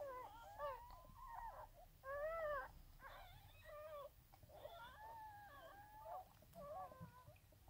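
Newborn springer spaniel puppies crying: a run of short, high cries that rise and fall in pitch, like mewing.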